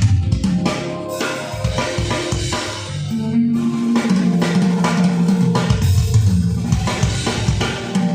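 Instrumental beat-driven music with drum kit, bass line and guitar, played back through JBL ES-series home-theater speakers.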